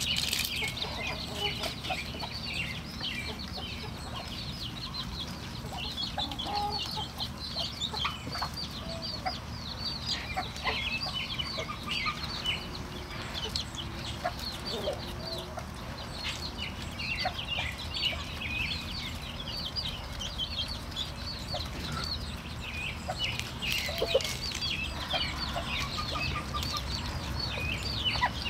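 A brood of Muscovy ducklings peeping continuously, many short high chirps overlapping, over a steady low rumble.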